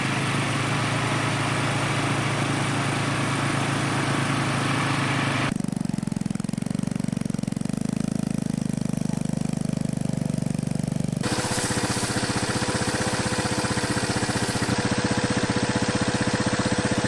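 An engine running steadily with a continuous drone. The sound changes abruptly twice, about five and a half seconds and eleven seconds in.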